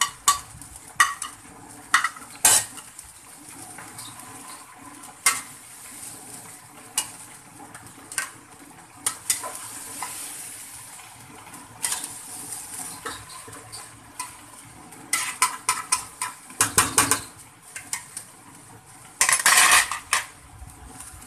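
Metal slotted spatula stirring and scraping okra, tomatoes and spices in an aluminium pot, with sharp clinks and scrapes against the pot over a light sizzle. Near the end comes a quick, dense run of scraping strokes.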